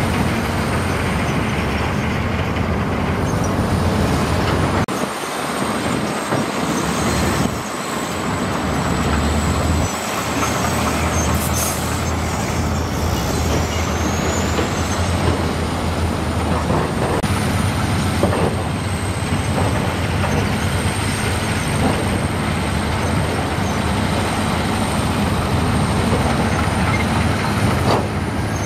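Heavy diesel construction machinery running steadily under load, with a thin high whine over the engine noise. The low engine drone drops out abruptly a few times in the first ten seconds.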